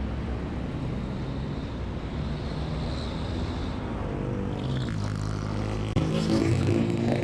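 Motor vehicle engine running with steady road noise; the engine note changes about six seconds in.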